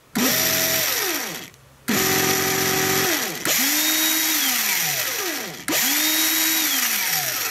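Cordless drill motor triggered four times in a row. Each time it spins up quickly, runs steadily for one to two seconds and winds down with a falling whine once the trigger is let go. The short bursts are made to read the drill's starting current.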